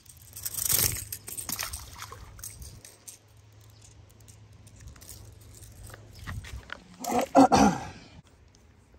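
Close handling noise as a small bass is unhooked from a lure: a loud rustling scuffle about a second in, scattered clicks and rubbing in the middle, and another loud scuffle near the end.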